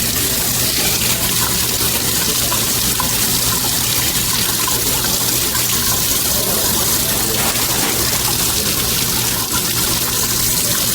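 Water running steadily from a tap, pouring over a freshly torch-heated soldered pipe to cool it.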